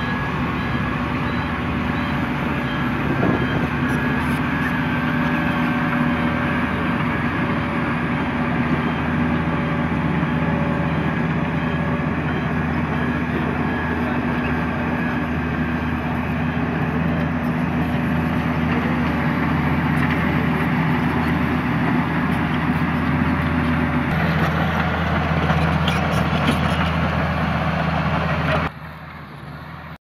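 Diesel engines of Hamm 311D single-drum vibratory rollers running steadily under load as they compact the road subgrade, the nearer machine a padfoot roller. About six seconds before the end one tone in the engine sound drops away, and shortly before the end the sound falls sharply to a much quieter rumble.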